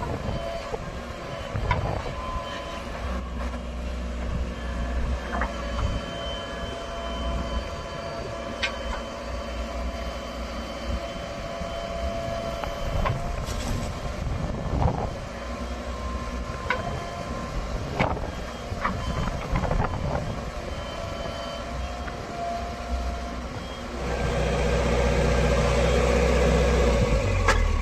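Heavy diesel engine running under work, with scattered knocks and clanks and some steady tones over it. About 24 s in the engine grows clearly louder, as if under heavier load, and holds there.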